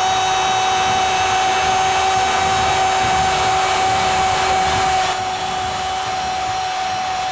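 A football commentator's long, unbroken "gooool" cry, held on one steady note, over the noise of a stadium crowd. The whole sound drops a little in level about five seconds in.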